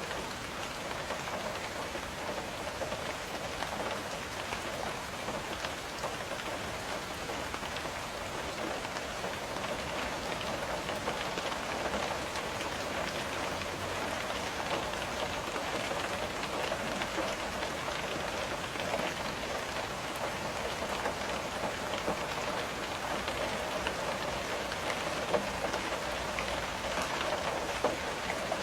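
Steady rain with a dense patter of raindrops tapping on a window pane, even in level, with a few slightly louder drops near the end.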